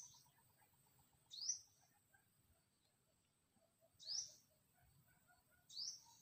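A bird calling: four short, high chirps, each sweeping upward in pitch, spaced about one and a half to two and a half seconds apart.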